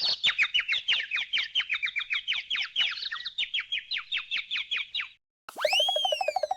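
Cartoon 'head bonk' sound effect of little birds chirping: rapid, continuous twittering, the comic sign of a dazed character after a knock on the head. About five seconds in it stops, and a cartoon whistle glides up and back down over a warbling tone.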